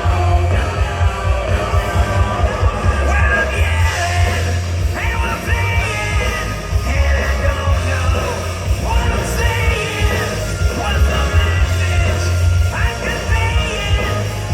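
Live rock band playing loud, distorted grunge-style rock with a heavy bass, a lead vocal singing over it.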